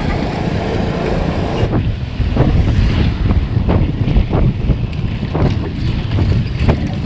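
Wind buffeting the microphone of a bike-mounted action camera while riding: a loud, uneven low rumble with gusty flutters.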